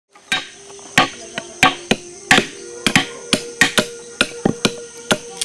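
About fifteen sharp knocks at an irregular pace, roughly two a second: a babassu coconut held on an upturned axe blade being struck to split it open.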